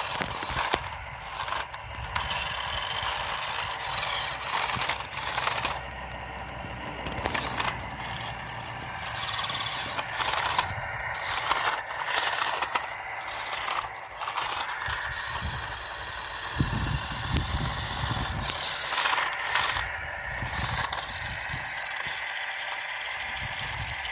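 Radio-controlled truck's small electric drive motor and gears whining, rising and falling in pitch with the throttle, over clattering and scraping as it crawls across rough ground.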